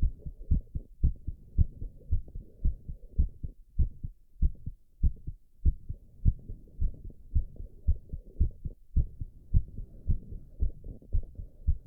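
A man's heartbeat, still fast at roughly 105–110 beats a minute as it recovers after squats. Each beat is a low double thump, a strong beat followed by a weaker one.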